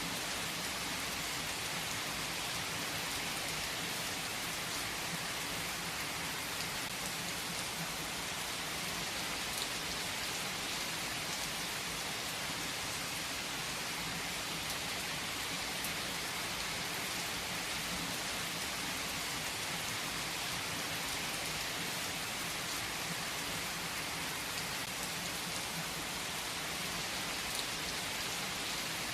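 Steady rain falling on a surface, an even hiss of many drops with a few louder single drops standing out.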